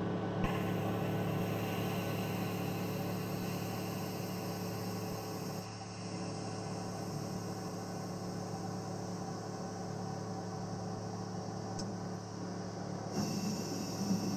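Steady electrical hum with an even fan-like hiss inside the cabin of a surfaced submersible, from its onboard machinery.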